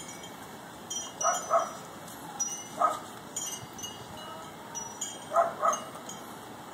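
Boston terrier giving short, low woofs, mostly in quick pairs, five in all. Faint high tinkling tones sound in the background.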